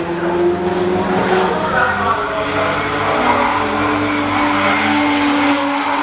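Drift car's engine held at high revs as the car slides sideways, tyres skidding. The engine note stays fairly steady, rising slightly, then easing off near the end.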